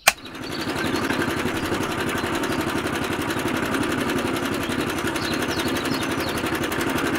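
A small motor or engine running steadily at an even speed, with a fast, regular pulse.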